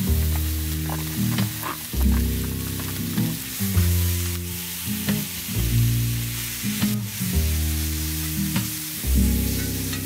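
Marinated meat sizzling and frying in a hot cast iron skillet as it is stirred, a steady hiss, under background music of low chords that change about every two seconds.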